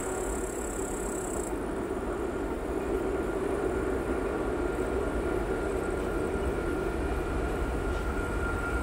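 Class 66 (EMD JT42CWRM) diesel-electric locomotive's two-stroke V12 engine working hard with a steady low drone, slowly growing louder as it approaches. It is pulling a heavy aggregate train up a rise.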